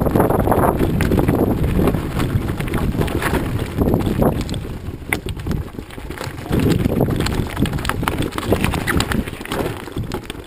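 Mountain bike riding over a loose gravel road: tyres crunching and the bike rattling over stones, with wind rumbling on the microphone. The noise eases off near the end as the bike slows.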